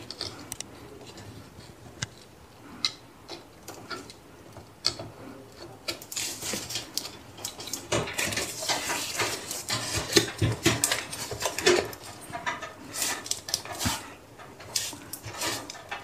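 Hands handling a graphics card and motherboard while seating the card into a PCIe slot: scattered light clicks, taps and knocks of plastic and metal, with a stretch of rustling in the middle and a cluster of clicks near the end.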